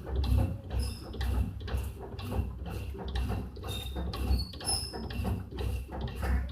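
Old Whirlpool washing machine running, with a rhythmic churning about twice a second made of low thuds and swishes, and a few brief high squeaks.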